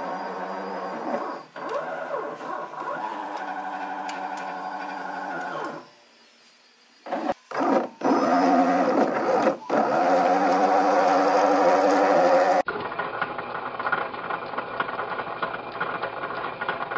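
Stepper motors driving a plywood robot arm through its gears, whining with pitch that rises and falls as the joints move; they stop for about a second six seconds in, then run louder until a cut about twelve and a half seconds in, after which a different, duller steady sound plays under the end logo.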